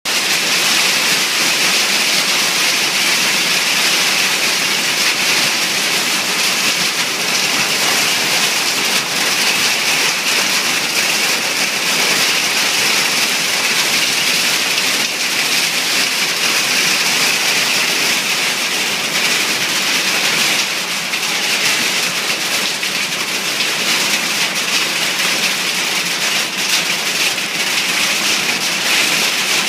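Heavy rain and hail beating on a shed roof: a loud, steady rush made of countless small hits.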